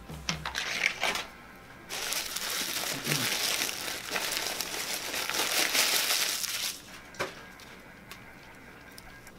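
A few brief clacks as a flip scoreboard card is turned over, then a McChicken's yellow paper wrapper loudly crinkling and rustling for about five seconds as the sandwich is unwrapped.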